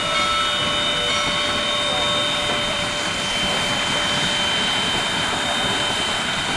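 Willamette geared steam locomotive working slowly, a steady rushing hiss of steam with a faint high whine over it.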